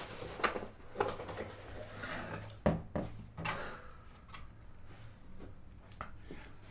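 Cardboard pizza box being handled and opened on a table, with rustling and a few sharp knocks, the loudest about two and a half seconds in.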